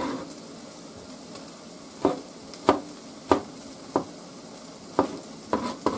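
Chef's knife slicing garlic cloves on a plastic cutting board: about seven sharp knocks, roughly every half second, starting about two seconds in. Behind them, a steady sizzle of food frying in a pan.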